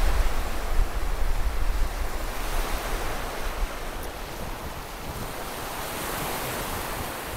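Small waves washing onto a sandy beach, a steady surf hiss, with wind noise rumbling on the microphone that is strongest in the first half.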